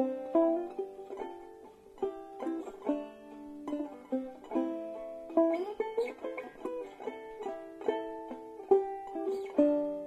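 Banjo playing a tune, plucked notes following one another and ringing over each other.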